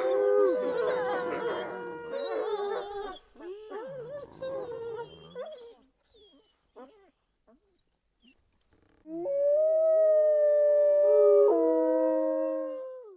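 Wolves howling: several long howls overlap at first, then turn to wavering howls that fade out, with a few short yips. After a short pause, two loud long howls are held together; their pitch steps down once, and they cut off suddenly at the end.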